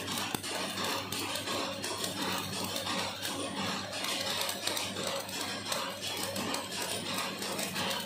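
Electric arc welding on a steel crusher roll: a steady, sputtering crackle of the arc over a low electrical hum.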